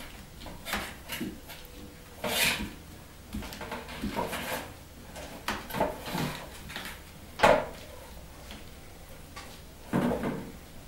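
A kitten playing on a carpeted cat tree with a sisal scratching post, batting at a hanging pom-pom toy: irregular scrapes, rustles and knocks from paws, claws and the toy against the post and platform. The sharpest knock comes about seven and a half seconds in.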